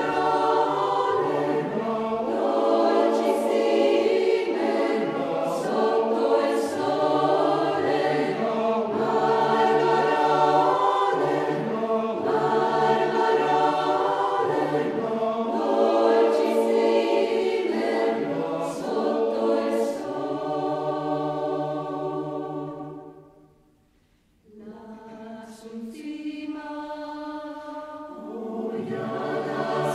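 Choir singing a folk song in slow, sustained harmony. About three-quarters of the way through, a phrase fades out into a brief pause, then the voices come back in and swell near the end.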